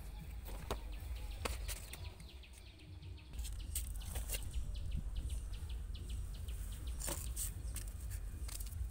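Damp washed clothes and a patchwork quilt being handled and hung over a brick wall to dry: fabric rustling and flapping, with scattered short ticks and a steady low rumble.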